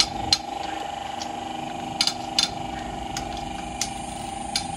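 Sharp metallic clicks, about seven spread irregularly, from a long-handled wrench and socket being worked on the cylinder head bolts of a Honda Civic engine. They sound over a steady high-pitched hum.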